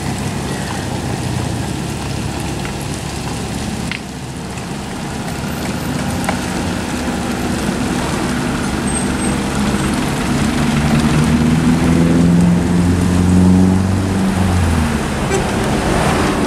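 Komatsu PC75UU mini excavator's diesel engine running under hydraulic load while its bucket drags and spreads gravel, with stones scraping and rattling. The engine note rises and grows louder about two-thirds of the way through.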